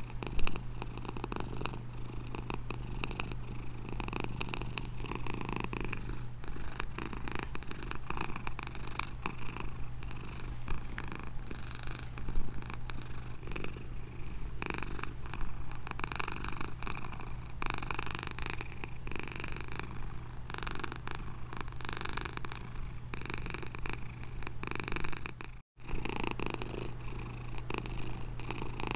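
Domestic cat purring steadily and continuously, with a brief split-second dropout near the end.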